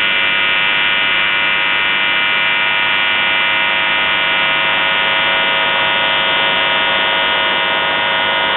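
UVB-76 'The Buzzer' shortwave station on 4625 kHz heard through a receiver: a steady, unbroken buzz over radio static hiss.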